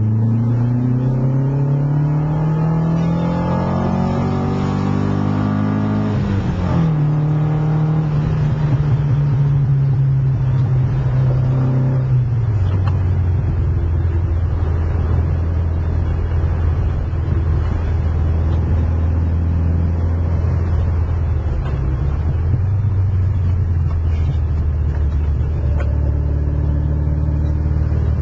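Ford Sierra Sapphire's Pinto four-cylinder engine on twin Weber DCOE carburettors, heard from inside the cabin. It revs up steadily through a gear, the pitch drops suddenly at a gear change about seven seconds in, and after another step down at about twelve seconds it settles to a steady cruise.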